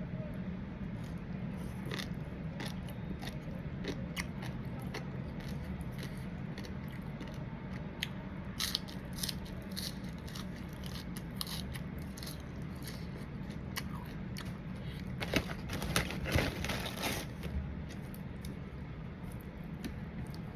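Close-miked eating: a person chewing and biting into papaya salad with crab and shrimp, with sharp crunches scattered throughout and a dense run of louder crunching about three quarters of the way in, over a steady low hum.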